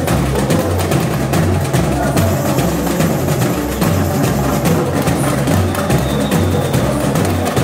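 Samba school drum section (bateria) playing a samba-enredo: dense, fast percussion strokes over steady, regular bass drum beats.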